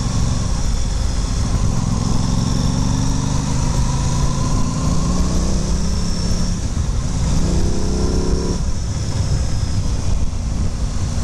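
Aprilia Tuono 660's parallel-twin engine pulling hard under acceleration. Its note climbs and drops back twice as the bike shifts up through the gears, over steady wind rush.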